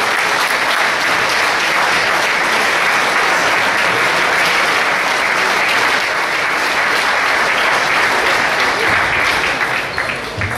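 Spectators clapping in sustained applause, steady and thick, dying away near the end.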